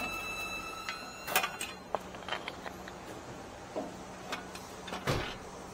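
Scattered metal clinks and knocks as a steel wheel-hub backing plate and its parts are handled and fitted against the steering knuckle. The sharpest click comes about a second and a half in, and a heavier knock comes near the end.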